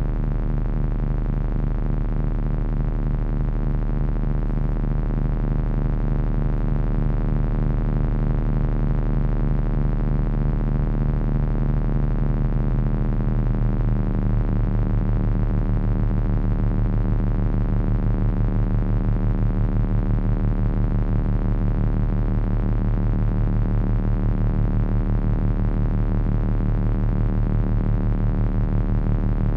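Heavy electronic drone from three Frequency Analyzer v1 units controlled by an HP 200C audio oscillator: a dense stack of low steady tones with a fast throbbing beat. About halfway through, the low tones shift to a new pitch.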